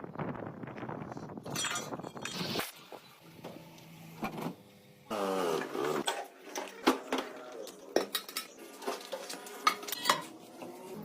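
Metal tools and parts clinking and knocking against each other, a quick irregular series of sharp metallic strikes, as truck differential parts are worked on by hand.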